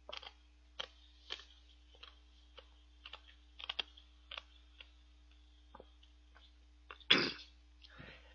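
Close-miked eating sounds from a man eating shaved ice (bingsu): scattered short, wet mouth clicks while he chews and swallows. A louder short burst of mouth or breath noise comes about seven seconds in, over a faint steady hum.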